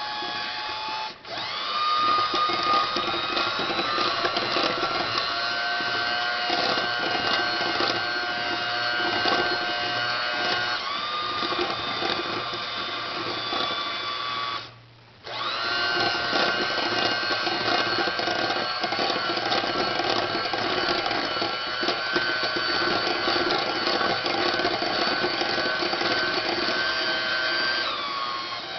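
Electric hand mixer running with a steady motor whine as it beats the cheesecake filling mix into milk. It cuts out briefly about halfway through and then starts again.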